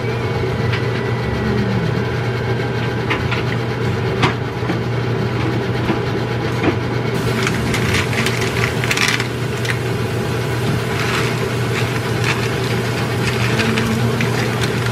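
Sauce simmering in a wok on a gas stove, with a wooden spoon stirring and knocking against the pan, over a steady mechanical hum. The clicks and short scraping noises come more often in the second half.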